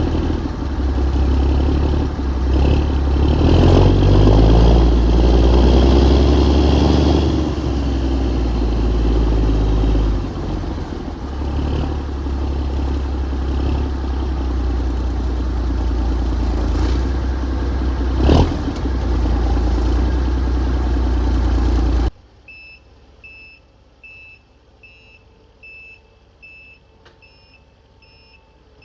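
Heavy-equipment diesel engine running under load and revving, with one sharp metal clank about two-thirds of the way in. The engine sound then cuts off abruptly, leaving faint, evenly spaced electronic beeps, about two a second.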